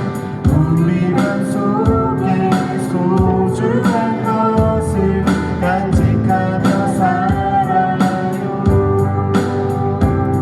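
Live band music: singing over guitar, with a steady drum beat.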